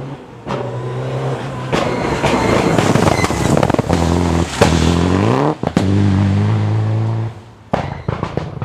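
Rally car engine at full throttle through a bend, the pitch climbing, breaking briefly at a gear change about halfway through and climbing again before the sound drops away. A few sharp cracks come near the end.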